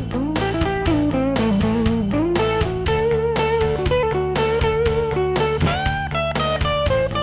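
Electric guitar playing a rock lead phrase with string bends that slide the notes up in pitch, over steady held low notes and a regular beat of sharp attacks.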